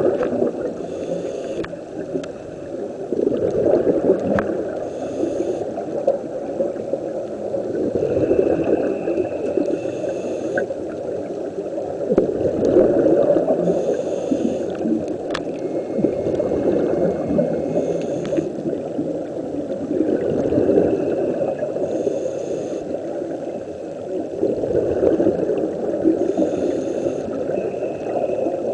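Scuba regulator breathing heard underwater: a short hiss on each inhale followed by a low bubbling rumble of exhaled bubbles, in a slow cycle about every four seconds.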